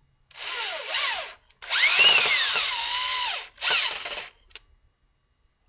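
Cordless drill driving screws into pre-drilled holes in a wooden bench, in three runs of the motor. The middle run is the longest: its whine rises, then drops and levels off.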